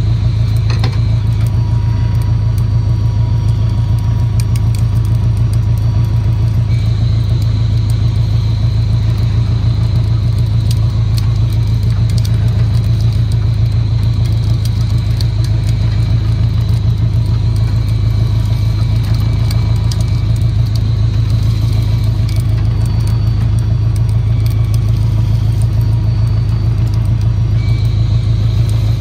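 Inboard diesel engine of a fishing boat idling steadily with an even low rumble, while a faint high whine comes and goes over it.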